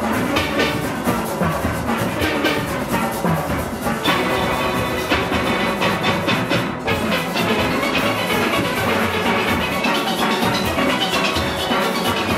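Large steel orchestra playing full out: many steel pans struck with rubber-tipped sticks in a dense, ringing ensemble over a steady percussion beat.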